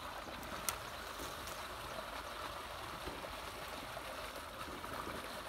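Steady outdoor background noise, an even hiss with no distinct source, broken by one short sharp click under a second in.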